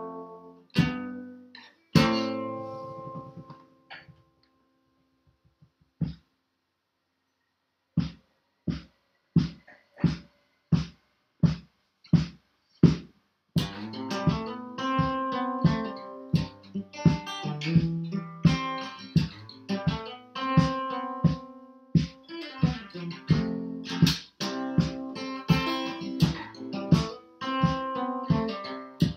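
Acoustic guitar played solo: a few ringing chords at the start, a pause of a few seconds, then short, evenly spaced strokes a little under two a second, then fuller continuous playing from about halfway on.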